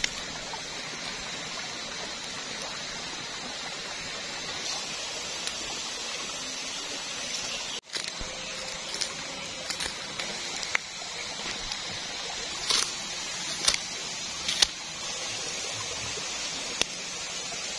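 Steady outdoor hiss, with several sharp taps in the second half as a knife slices red chilies against a wooden log.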